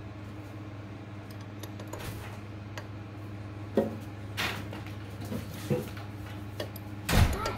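5/16 open-end wrench clinking against the blade-clamp nuts and steel cutterhead of a Delta 22-540 portable planer as the nuts are tightened in turn. It is a few short, sharp metal clinks, spread over the second half, with the loudest near the end.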